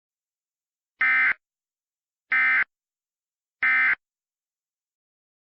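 Emergency Alert System end-of-message code: three identical short bursts of shrill digital data tones, about a second and a quarter apart, signalling that the alert has ended.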